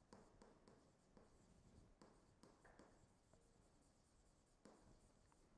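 Faint taps and scratches of a stylus on a tablet screen as words are handwritten, in short strokes.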